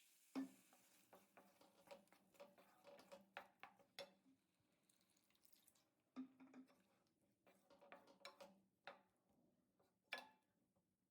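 Faint, irregular taps and scrapes of a spatula stirring vegetables in a frying pan, with a sharper knock about half a second in and another about six seconds in.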